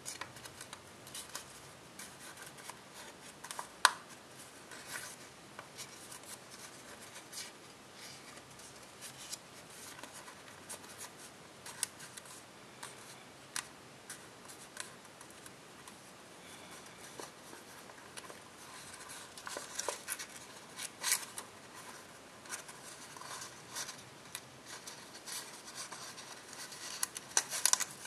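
Copper tissue foil paper crinkling and crackling as it is folded and creased by hand, with irregular sharp clicks. The loudest is a single snap about four seconds in.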